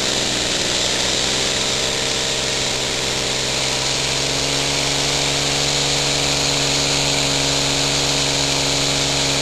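A small homemade elbow engine running fast and steadily on compressed air: a continuous even whir from its spinning pistons and flywheel over a constant hiss of exhausting air, its pitch settling and holding steady about four seconds in.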